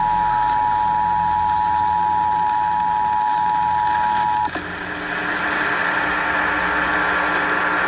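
Emergency Alert System two-tone attention signal (853 and 960 Hz sounding together) received over a radio, heralding a required monthly test. The steady dual tone cuts off abruptly about four and a half seconds in, leaving radio hiss with a faint low hum.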